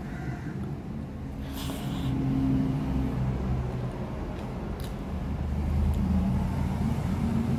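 A motor vehicle's engine running, a low rumble that swells and fades.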